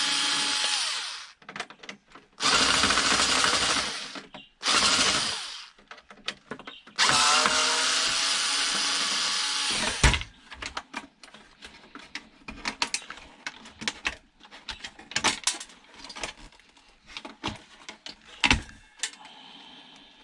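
Cordless drill-driver running in four short bursts as screws are backed out of a DVD player's casing; the last and longest burst lasts about three seconds. After that come scattered light clicks and knocks of the parts being handled.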